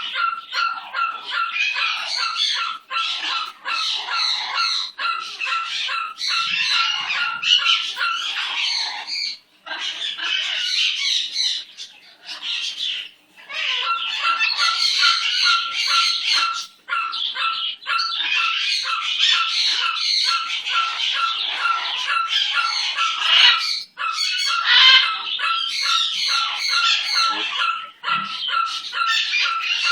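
A pet ringing its small bell over and over: a rapid jingle, each shake bringing out the same ringing tone, with a few short pauses.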